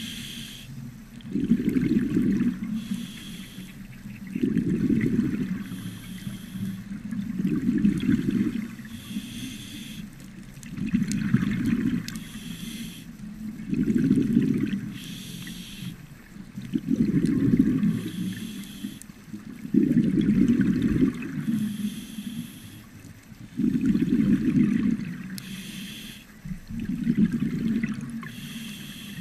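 Scuba diver breathing through a regulator underwater. Each breath is a short hiss on the inhale, then a louder burble of exhaled bubbles, about one breath every three seconds.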